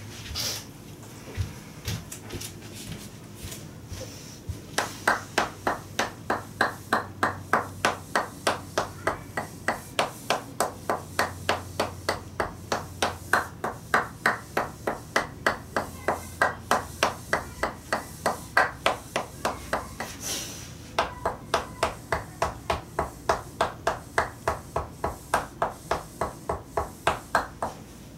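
Tok sen treatment: a wooden mallet knocking on a wooden wedge held against the body through a towel. The knocks start sparsely, then settle into a steady run of about three a second, with a short break about two-thirds of the way through.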